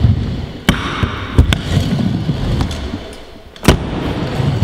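Stunt scooter wheels rolling on wooden skatepark ramps with a steady rumble, broken by several sharp clacks and bangs of the scooter hitting the plywood. The loudest bang comes near the end.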